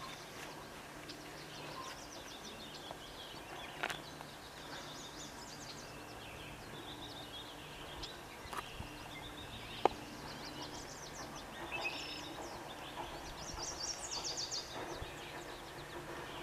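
Rural outdoor ambience with several songbirds singing quick chirps and trills, over a faint steady low hum. A single sharp click about ten seconds in.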